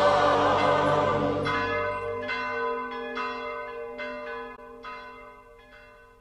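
Recorded choral Christmas music ends about a second and a half in, and bells ring on alone, struck several times roughly a second apart and fading away toward the end.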